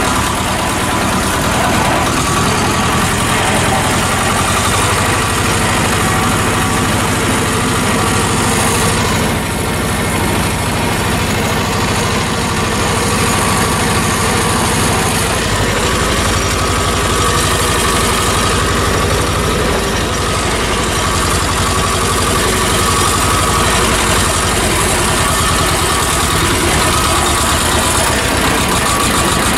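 T-25 Władimirec tractor's two-cylinder air-cooled diesel running steadily while driving, heard from the open, cab-less driver's seat right beside the engine and exhaust.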